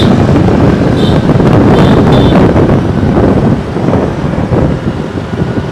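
Loud wind buffeting the microphone while riding on a motorbike, with road noise underneath.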